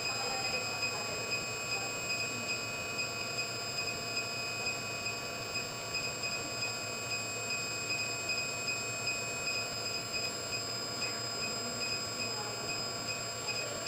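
Steady high-pitched electronic whine from a machine, made of several fixed tones, with a soft regular pulse about two to three times a second.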